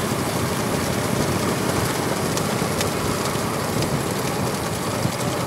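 Bullock carts racing on a paved road: a steady clatter of hooves and cart wheels mixed with the engine noise of the motorbikes following.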